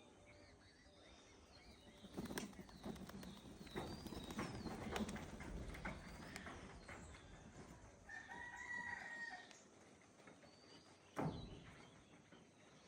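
Faint rustling and clattering for several seconds, then a rooster crows once, a steady call about a second and a half long.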